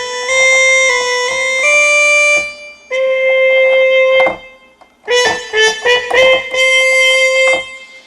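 Sampled trumpet patch on a Roland MV-8800 played as a single-line melody in mono mode with legato on, so each sustained note runs straight into the next. The melody breaks off for a moment about halfway through, then picks up again.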